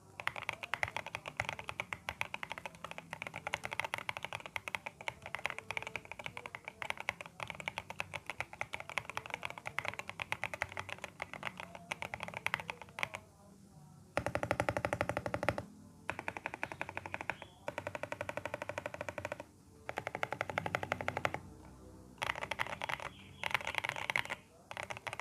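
GMK81 mechanical keyboard with WS Morandi switches and lubed stabilizers being typed on, with a deep, thocky keystroke sound. There is a steady stream of keystrokes for about thirteen seconds, then several bursts of very rapid, evenly spaced strokes.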